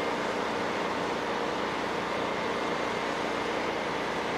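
Siemens Charger diesel-electric passenger locomotive idling steadily, a constant engine hum with a faint high whine.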